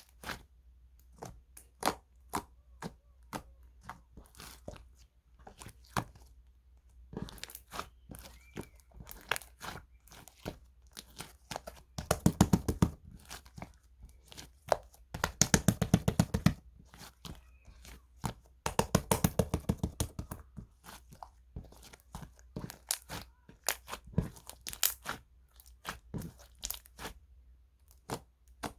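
Slime being squeezed, stretched and poked by hand, giving irregular sharp clicks and pops as air pockets burst. Three times, about twelve, fifteen and nineteen seconds in, it breaks into a second or so of rapid crackling clicks.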